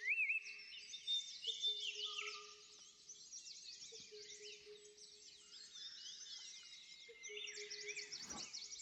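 Many small birds chirping and twittering together, busiest in the first two seconds and again near the end.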